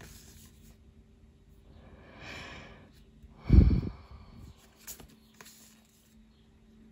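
A person breathing: a soft drawn breath, then a short, loud puff of breath out through the nose about three and a half seconds in. A couple of faint clicks from tarot cards being shifted in the hands follow about five seconds in.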